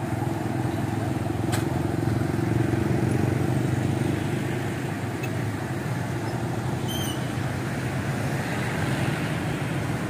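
Road traffic at a roundabout: motorcycles and cars driving past with a steady mix of engine and tyre noise.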